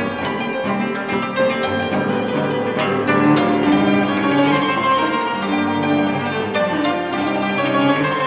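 A chamber trio of yangqin (Chinese hammered dulcimer), cello and piano playing. The yangqin's quick hammered notes sit over held lower notes, and the music grows a little fuller about three seconds in.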